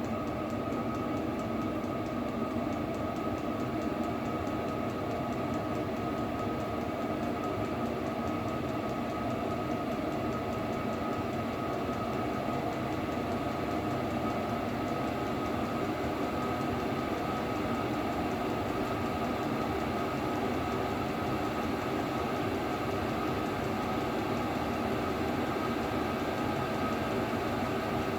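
Chinese diesel air heater running steadily: an even mechanical whir from its combustion-air fan and burner, with a constant high tone over it.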